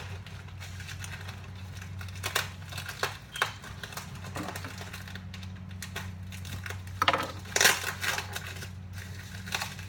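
Beer cans being unpacked from a shipping box: packing material crinkling and rustling, with a few sharp knocks of cans being handled over a steady low hum. The loudest knocks and rustles come about seven seconds in.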